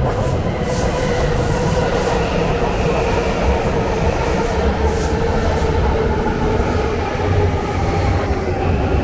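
Electric commuter train running past at close range: a steady rumble of wheels on the rails with a faint whine held over it.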